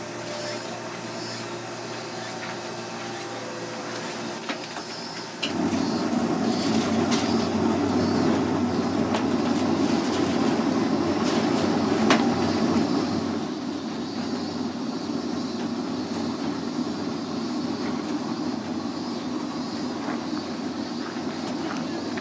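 Soft-serve ice cream machine running with a steady mechanical drone as soft serve is pulled into a cone. The drone comes in suddenly about five seconds in and eases slightly a few seconds before the end; before it there is only a quieter steady hum with a few light clicks.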